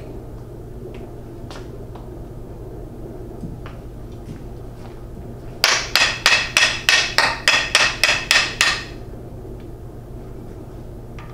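A wooden meter stick striking a rolling bowling ball about a dozen times in quick succession, some four sharp knocks a second, each with a short ring. The strikes push against the ball's motion and bring it to a stop.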